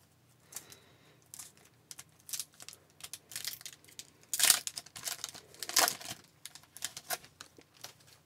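Foil wrapper of a hockey trading card pack being torn open by hand, with irregular crinkling and crackling. The two loudest bursts come about four and a half and six seconds in.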